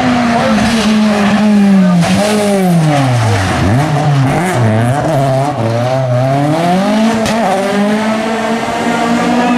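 Rally car engine at high revs, falling steeply in pitch about three seconds in as the car slides through the bend with tyres spinning and smoking. It then revs back up and holds high revs as it accelerates away.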